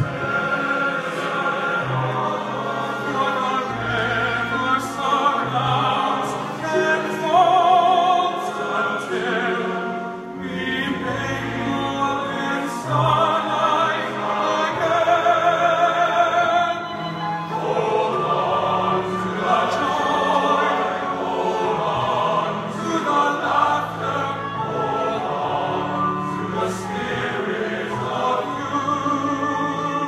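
Men's chorus performing live: a solo voice sings with wide vibrato in front of the choir, over sustained low notes.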